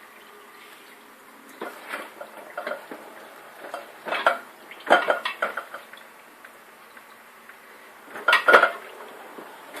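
Dishes and cutlery clinking against each other in irregular clatters, the loudest cluster about eight and a half seconds in, over a faint steady background.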